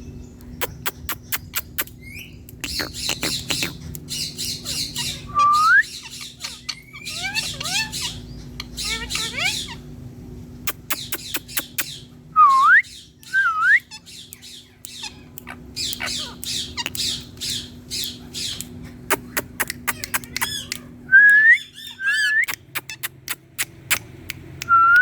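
Indian ringneck parakeet calling: groups of harsh, rapid squawking chatter mixed with sharp clicks and several short rising whistles, the loudest about midway and near the end.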